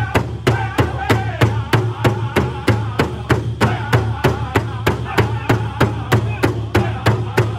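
Powwow drum group beating a large powwow drum in unison with drumsticks, a steady fast beat of about three to four strokes a second, with the group singing a chicken dance song over it.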